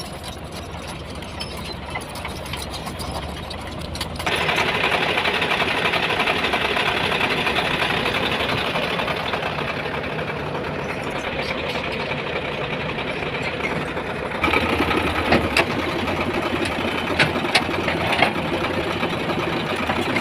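Heavy diesel construction machine running, its engine steady at first, then jumping up in level about four seconds in to a loud, dense, fast rattle. The sound changes again about fourteen seconds in, and several sharp knocks come over it near the end.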